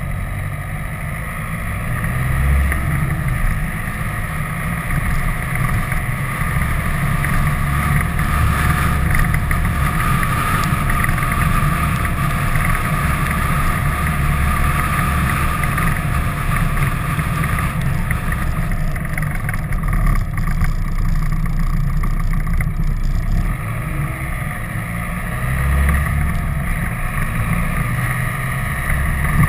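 A vehicle driving at speed, its engine and road noise mixed with wind buffeting on the camera's microphone, steady throughout.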